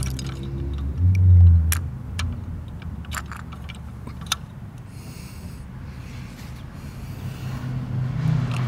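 Truck engine running, with a brief rise in revs about a second in, and scattered clicks and clatter during the first few seconds. A short hiss comes about five seconds in.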